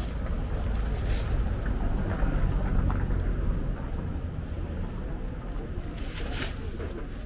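Wind rumbling on the camera microphone, with a couple of brief rustles, about a second in and again near the end.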